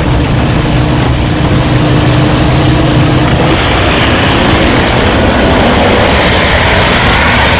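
Two turbocharged pro street diesel drag pickups at the starting line, engines roaring under load with high turbocharger whistles climbing in pitch. About three and a half seconds in they launch: the roar grows fuller and a fresh turbo whine rises as the trucks accelerate away.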